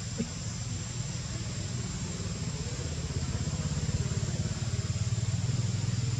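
An engine idling nearby, heard as a steady low, finely pulsing rumble that grows slightly louder partway through, over a thin, steady high-pitched whine.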